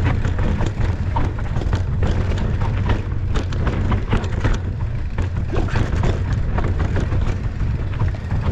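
Mountain bike ridden over rough ground: a steady low rumble of wind buffeting the microphone, with frequent clattering knocks and rattles from the bike and stones.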